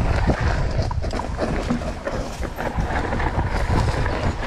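Wind buffeting the microphone of a mountain bike's on-board camera on a fast descent of a rough dirt trail, with tyre noise and many small knocks and rattles from the bike over the bumps.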